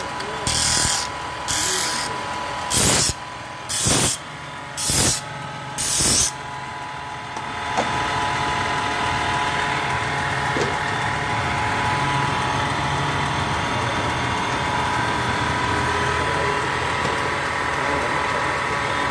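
Disc sander in a wood workshop with a workpiece pressed against the spinning abrasive disc in short strokes, about six grinding passes a second apart. After about six seconds the sander runs on steadily with a constant hum.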